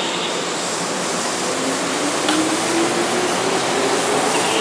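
Keihan 6000-series electric train running along the platform: a steady rushing rumble of wheels and bodywork, with a faint motor whine slowly rising in pitch.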